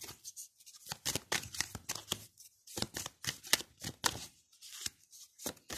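Tarot deck being shuffled by hand: quick, irregular flicks and slaps of cards in clusters, with short pauses between them.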